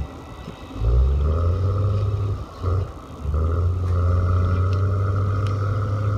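Engine of a cable logging hauler working a grapple carriage along the skyline: it drops off near the start, revs back up about a second in, dips again briefly twice between two and three seconds, then runs steadily under load, with a steady whine above it.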